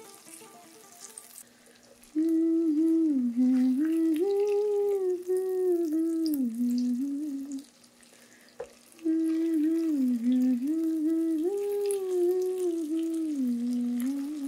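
A slow humming tune in two matching phrases of held and gliding notes over a steady low tone, dropping out for about a second midway. Faint sizzling of tomato, onion and green chilli frying in oil runs underneath.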